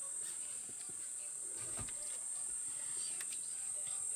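Steady, high-pitched chorus of insects drilling on one unbroken note.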